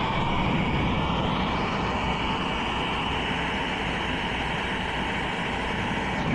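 Turbo brazing torch burning with a steady hissing flame while brazing a copper refrigerant line joint.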